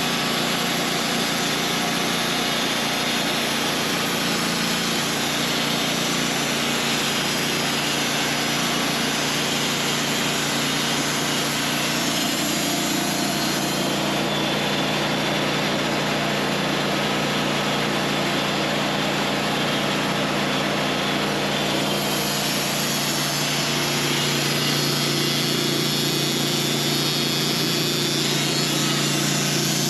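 Portable sawmill running steadily, its engine and blade sawing a slab off a honey locust log.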